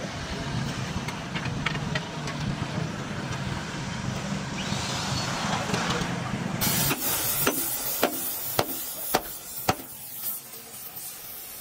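A steady low mechanical hum. About two-thirds of the way through it gives way abruptly to a loud hiss broken by several sharp knocks.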